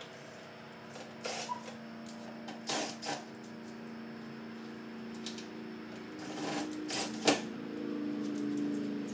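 Hand tools and wiring being handled in a truck's engine bay: a few short clicks and rattles, the sharpest about seven seconds in, over a steady low hum.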